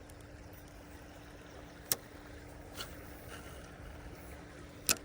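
Faint steady outdoor background noise with a low hum, broken by two sharp clicks about three seconds apart and a softer tick between them.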